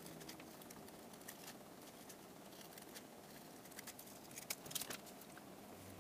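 Small scissors snipping through sticky-note paper to cut out a mask, as faint scattered snips with a quick run of sharper snips near the end.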